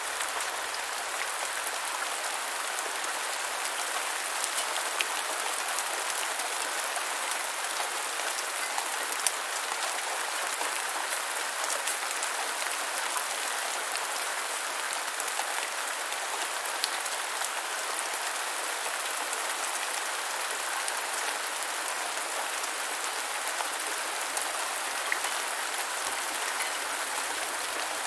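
Steady light rain falling, an even hiss with scattered individual drop ticks.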